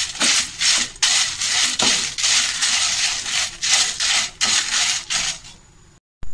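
Spatula stirring dry whole spices and dried red chillies around a non-stick kadai: a quick run of dry, rattling scrapes, about three a second, trailing off near the end. The spices are being dry-roasted on a low flame to be ground into masala.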